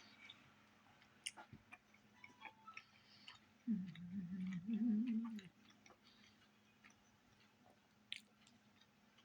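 Close-up chewing of a soft chicken wrap, with small wet mouth clicks, interrupted about four seconds in by a closed-mouth hummed 'mmm' of enjoyment lasting about two seconds, the loudest sound here.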